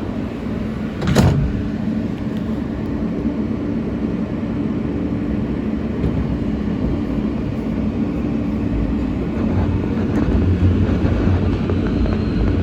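R160 subway train running on the track, a steady running noise with a low hum under it. A sharp clank rings out about a second in, and the low rumble grows louder near the end.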